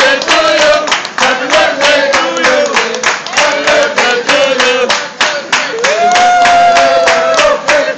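A group singing a birthday song while clapping a steady beat, about three claps a second, and ending on a long held note near the end.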